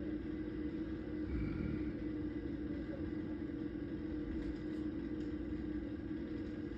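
An engine running steadily at one unchanging speed, a constant hum over a low rumble.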